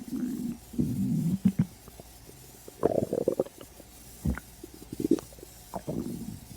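Human stomach growling from hunger on an empty stomach: a series of short gurgling rumbles with quiet gaps between them, and a single sharp pop a little past the middle.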